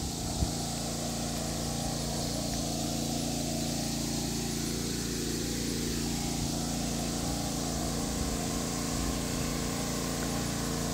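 A small engine running steadily at a constant speed, an even hum that does not rise or fall.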